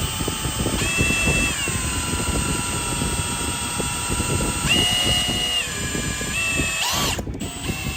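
Electric drill spinning the oil pump of an overhauled Chrysler 360 V8 marine engine through a priming tool to build oil pressure before first start. The drill's whine steps up in pitch and drops back several times as its speed changes.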